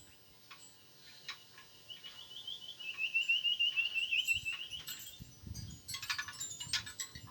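A bird's rapid trill of short repeated high notes, lasting about three seconds, followed near the end by a burst of sharp chirps and clicks.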